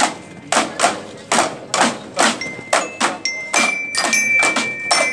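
Marching band drums (snare and bass drums) beating a steady march rhythm, about two strokes a second. High ringing bell-like notes sound over the drumming from about three and a half seconds in.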